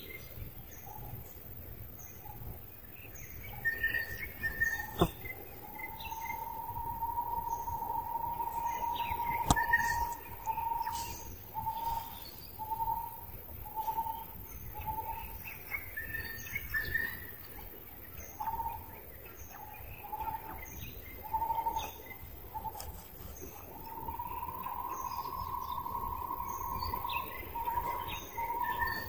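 Birds calling outdoors. A steady whistled note is held for several seconds, then breaks into a run of short repeated notes at the same pitch, about one every two-thirds of a second, and near the end it holds long again. Higher chirps repeat evenly throughout, and there are two sharp clicks about five and ten seconds in.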